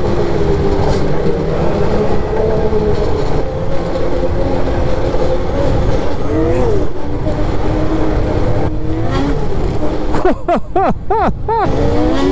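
Polaris two-stroke snowmobile engine running at trail speed, its revs climbing. Near the end the engine pitch swings up and down sharply several times.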